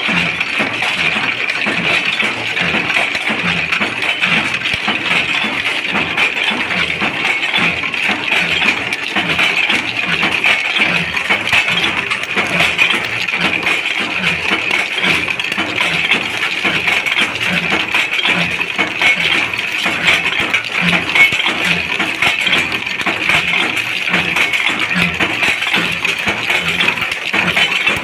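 Bolt thread-rolling machine running, a continuous dense metallic clinking and rattling of steel bolts against steel, with regular low knocks from the machine underneath.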